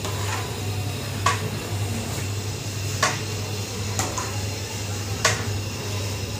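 A long metal ladle stirring thick curry gravy in a large stainless-steel pot, the gravy squelching, with about five sharp metal knocks against the pot every second or so. A steady low hum runs underneath.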